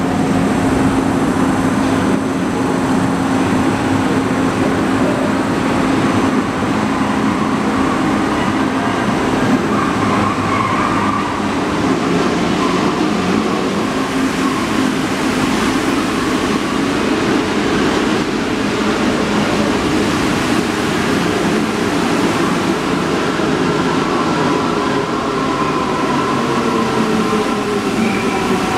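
CAF NS-07 rubber-tyred metro train running into the station and braking: a steady rolling rush, with a motor whine that falls in pitch near the end as the train slows.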